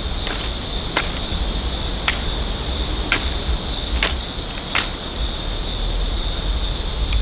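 A knife cutting small twigs off a green stick, giving sharp clicks about once a second that stop about five seconds in. Under them is a steady high insect drone and wind rumbling on the microphone.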